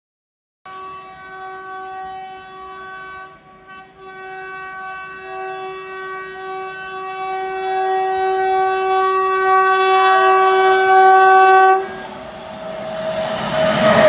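WAP-7 electric locomotive's air horn sounded in a long steady honk, with a brief break about three seconds in, growing louder as the train approaches and cutting off near the end. Then the rushing clatter of wheels on rail rises as the locomotive passes close by.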